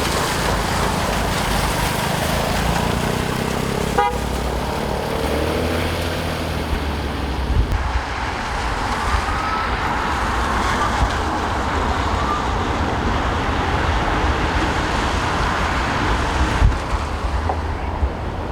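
City street traffic, with a vehicle engine passing in the first half, over steady wind buffeting the microphone.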